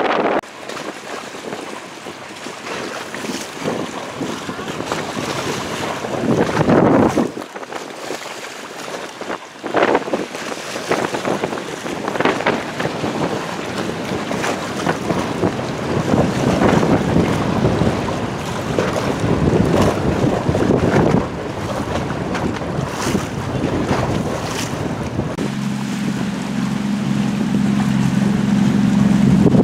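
Wind buffeting the microphone and rushing, splashing water from a boat crossing rough waves, surging louder and softer. Near the end a steady low engine hum comes in.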